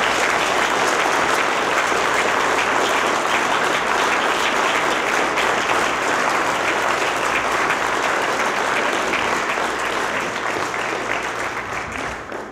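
Audience applauding, many hands clapping in a dense, steady patter that fades away near the end.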